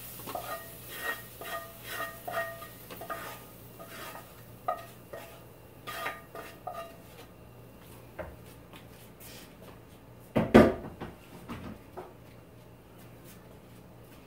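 Cast-iron skillet knocked and scraped with a utensil as it is emptied onto a plate, ringing briefly at each stroke in a quick run for several seconds. This is followed by softer clicks and one loud clank about ten seconds in.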